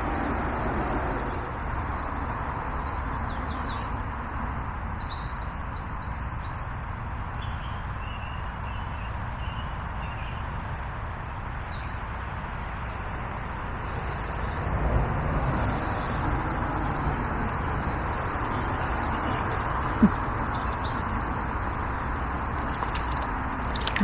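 Small birds chirping in several short bursts over a steady rushing background noise. A single sharp click comes near the end.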